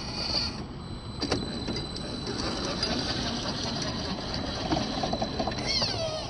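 Axial SCX10 II RC rock crawler's electric motor and gear drive whining as it crawls over rock, with a sharp click about a second in and a falling whine near the end as the motor winds down.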